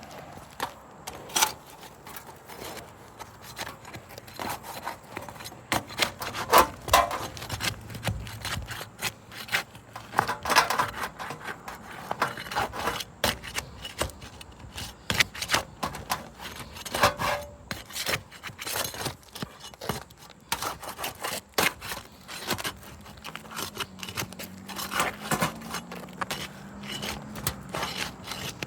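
Asphalt roof shingles around a roof vent being pried and worked loose: irregular scraping and rubbing strokes with sharp clicks and snaps, as the shingles are tested to see whether they lift without damage. A faint steady hum comes in near the end.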